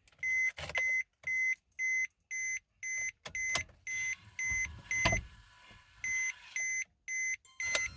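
Electronic beeping: a short, high beep repeating about twice a second, with a brief pause near the end, and two dull knocks partway through.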